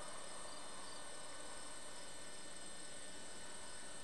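A steady hum with a hiss over it, with no distinct sound standing out.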